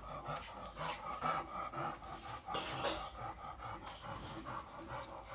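Inspiratory stridor after surgery: quick, noisy breaths with a harsh, pitched noise on each breath in, a sign of a narrowed upper airway. One breath about halfway through is louder than the rest.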